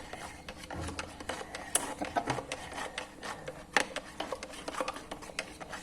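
Spoon clicking and scraping irregularly against a glass while a drink is stirred, a few light knocks a second with one louder knock a little before the middle.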